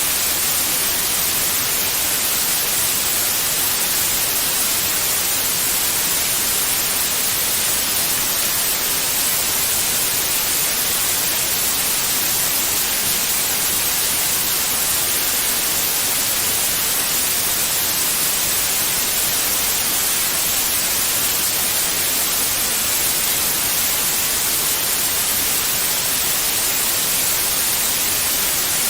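Steady white noise: an even, unbroken hiss, brightest in the high frequencies, with no changes.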